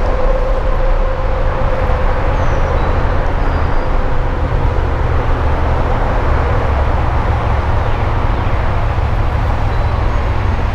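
Steady rumble of highway traffic passing overhead, with one vehicle's tone falling slightly in pitch about a second in.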